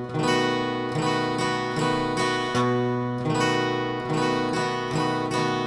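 Guitar playing a B7 chord in a bass, strum, down, up, down, up pattern at a slow, even tempo: a single bass note on the fifth string's second fret followed by strummed down and up strokes, repeated.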